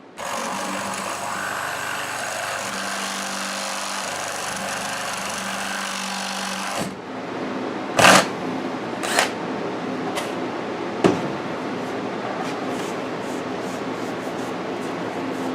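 A small power tool runs steadily for about seven seconds, followed by a few sharp clicks and then quick light ticks from hand tools at work.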